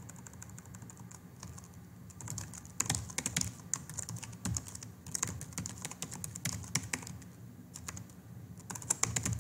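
Typing on a computer keyboard: runs of rapid keystrokes with short pauses between them, loudest from about three seconds in.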